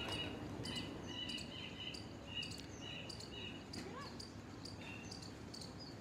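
Outdoor background of high, repeated chirping: short even notes about twice a second that stop a little after three seconds in, with one more near five seconds, over many faint sharp ticks. A brief whistle rises and falls around four seconds in. No cat sounds are heard.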